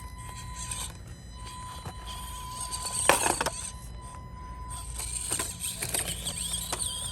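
Axial SCX24 Deadbolt mini RC crawler driving over obstacles: a faint steady whine from its small electric motor, with scattered knocks and scrapes of tires and chassis on the course, the loudest about three seconds in.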